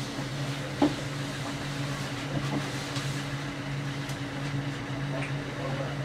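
Steady low electrical and mechanical hum inside a tram, with a single sharp click about a second in.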